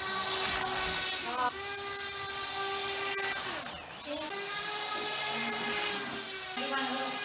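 A 300-class 1600 kV brushless motor spinning a propeller on a LEGO RC buggy: a steady buzzing whine that briefly falls in pitch and loudness a little past the middle, then climbs back.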